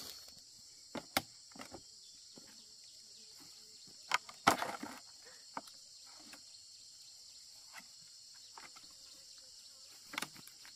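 Insects chirring steadily at a high pitch, with a few scattered knocks and rustles; the loudest knock comes about four and a half seconds in.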